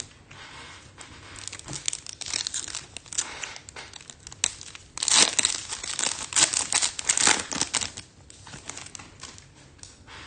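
Foil trading-card pack wrapper crinkling as it is torn open and handled, loudest about halfway through.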